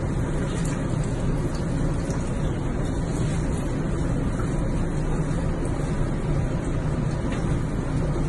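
Steady rushing noise of water running into a bathtub, which cuts off suddenly near the end.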